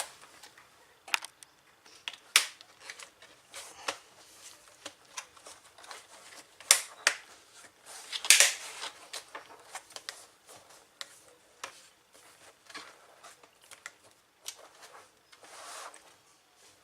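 Irregular plastic clicks, taps and snaps from handling a laptop's keyboard panel and its cables as they are refitted, with a few louder snaps and a short scrape about eight seconds in.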